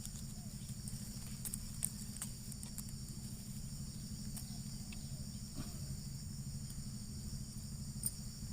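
Outdoor rural ambience: a steady high-pitched insect chorus over a constant low hum, with a few faint clicks.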